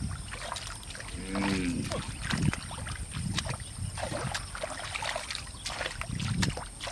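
Hands splashing and squelching through shallow muddy water while groping in the mud for fish: irregular small splashes and wet slaps.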